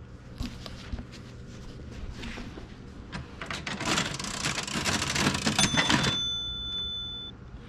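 Cash register sound effect: a clatter of keys and mechanism that builds up and stops, then a bell ringing near the end.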